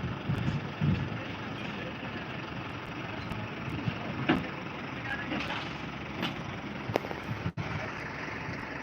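Construction-site din: a steady rumble of heavy-vehicle or machinery noise, broken by a few sharp knocks.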